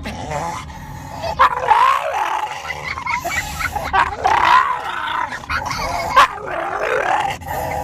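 A dog vocalizing in a string of short calls that bend up and down in pitch, one after another, with a few sharp clicks between them.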